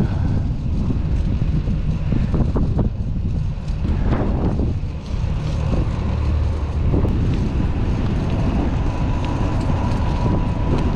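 Headwind rumbling and buffeting the microphone while cycling, over the sound of road traffic. A faint steady tone comes in over the last few seconds.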